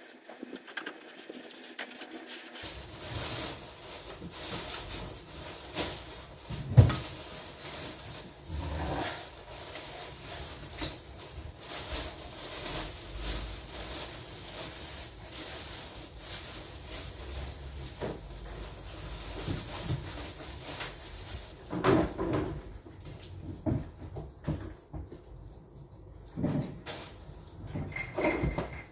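Plastic shopping bags rustling as groceries are unpacked and set down on a table, with scattered knocks and one sharp knock about seven seconds in.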